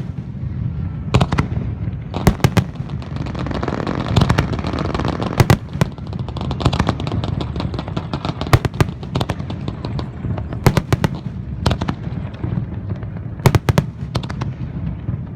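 Aerial fireworks bursting in quick succession: sharp bangs, often in pairs and clusters, over a steady crackling that swells a few seconds in.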